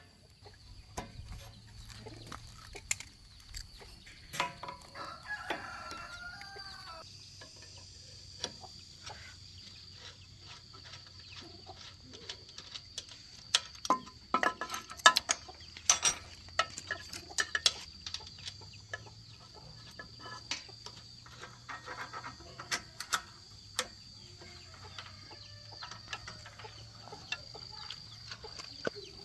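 A rooster crows about five seconds in, over scattered sharp clicks and knocks, with a steady faint high whine and a low hum underneath.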